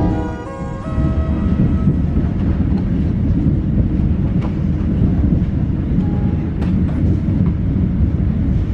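A passenger train running, heard from inside the coach as a steady low rumble with a few sharp clicks now and then. Background music fades out in the first second.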